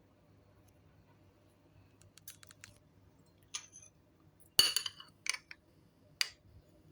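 Kitchenware clinking: a few light ticks, then four hard clinks, the loudest about halfway through ringing briefly.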